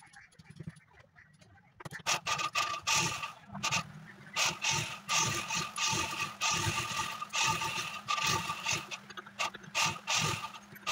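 Motorised sewing machine stitching fabric: it starts about two seconds in and runs in spurts, a steady motor hum under a fast clatter of the needle mechanism.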